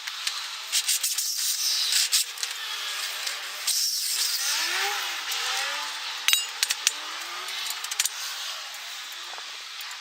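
Hand tools and steel parts clinking and tapping irregularly while an angle-iron and box-section track is bolted together, over a steady hiss.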